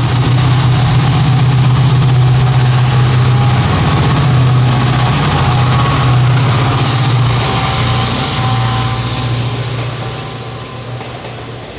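WDP4 diesel locomotive (EMD two-stroke, 16-cylinder) passing close at speed with a steady, loud engine drone and rushing wheel-and-rail noise. The sound fades about three quarters of the way through as the locomotive draws away and the coaches run past.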